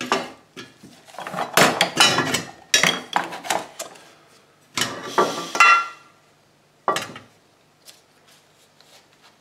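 Metal hand tools and small tin parts clinking and clattering on a workbench as hands rummage among them, in several short bursts with a brief metallic ring about five and a half seconds in, dying away near the end.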